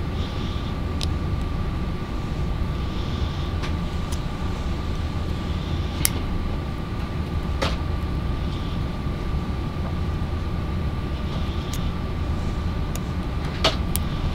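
Scattered small sharp clicks as a hobby-knife blade picks at the plastic housing of an Anderson Power Products 2-pin connector, working to free the locking clip that holds the contact in. A steady low hum with a faint constant high whine runs underneath.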